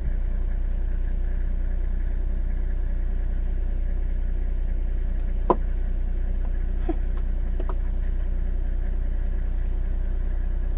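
Vehicle engine idling with a steady low hum. A few short sharp sounds cut through it about five and a half, seven and nearly eight seconds in, the first the loudest.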